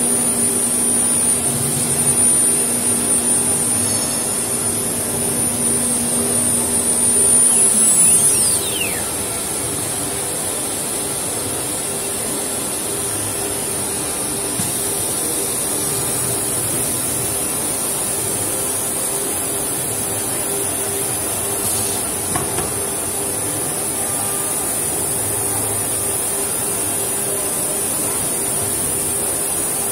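MC 1325 CNC router's spindle running while routing grooves into a wood door panel: a steady high whine over a steady hum. About eight seconds in, a second, lower hum falls in pitch and dies away, and the sound settles a little quieter.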